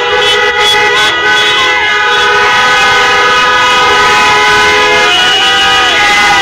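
Many car horns blaring together and held on, several different pitches sounding at once, from a packed line of slow-moving cars.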